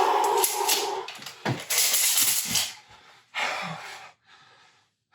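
Heavy, breathy panting and gasping: a run of loud, hissy breaths with short gaps, growing fainter and further apart toward the end.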